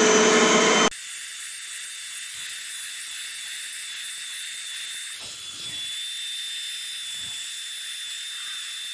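Portable carpet cleaner's suction motor running loud, then about a second in dropping abruptly to a steady hiss with a thin high whine as the hand tool is worked over the carpet.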